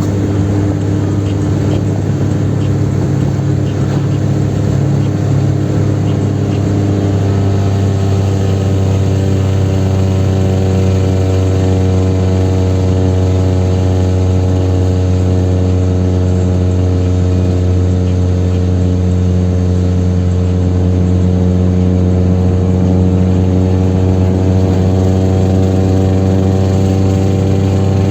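Chevrolet Kadett 1.8's four-cylinder engine running under load at high road speed, a loud, steady drone with road and wind noise. A steadier, more pitched engine hum comes in about eight seconds in and holds.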